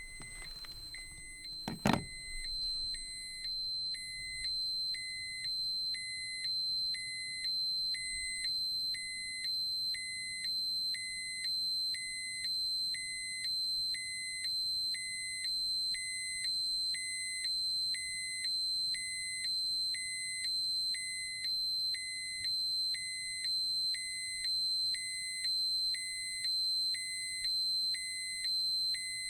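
Electronic dosimeter alarm: a steady high-pitched tone with an evenly repeating beep on top, a bit under once a second, going on without a break. There is one sharp click about two seconds in.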